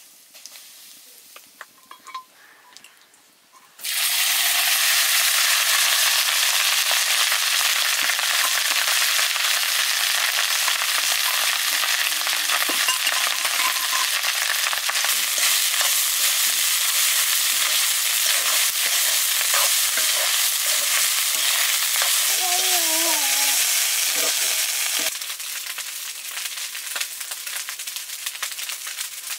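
Food frying in hot oil: a loud, steady sizzle that starts suddenly about four seconds in and falls to a softer sizzle near the end.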